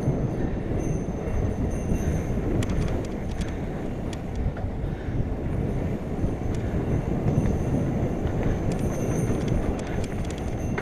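Mountain bike rolling fast over a dirt trail: a steady rush of wind and tyre rumble, with short bursts of clattering rattles from the bike about two seconds in and again near the end.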